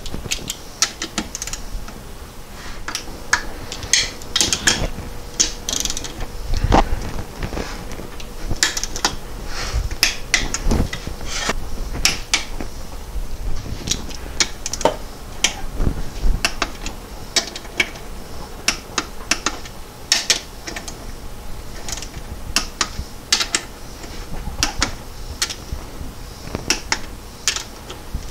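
A hand ratchet clicks in irregular bursts as bolts on the transmission case are run down and tightened. A few dull knocks come in between.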